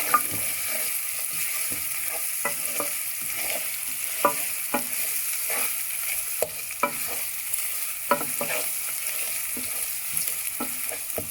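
A tempering of mustard seeds, urad dal, curry leaves and dry red chili sizzling steadily in hot oil in a pan, while a spoon stirs it with irregular clicks and scrapes against the pan.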